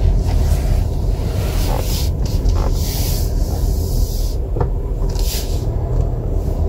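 Inside a slowly moving Buick: a steady low rumble of engine and road noise, with a few short hissy rustles.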